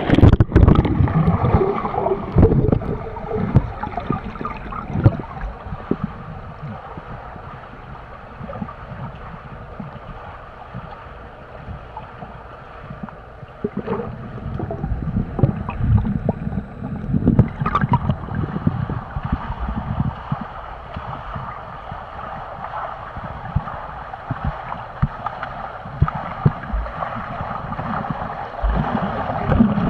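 Muffled underwater sound of a swimming pool picked up by a submerged camera: churning water with many low thumps. It grows louder in the second half as a swimmer's front-crawl strokes and kicks come close.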